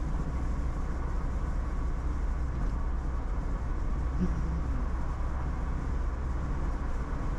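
Steady road and engine rumble of a moving vehicle heard from inside the cabin, deep and unbroken.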